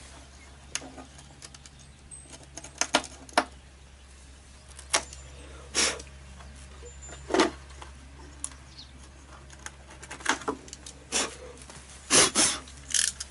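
Small metal parts and hand tools clicking and scraping in irregular bursts while a model steamboat is worked on by hand, over a steady low hum.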